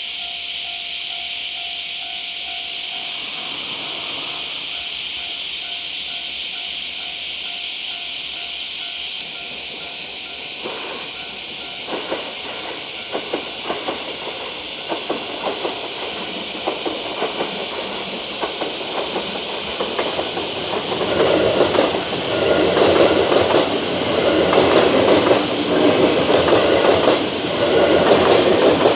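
JR West 221 series six-car electric train approaching and passing a level crossing: wheels start clacking over the rail joints about twelve seconds in and grow louder, and in the last several seconds the train passes with a loud rush. A steady hiss runs underneath.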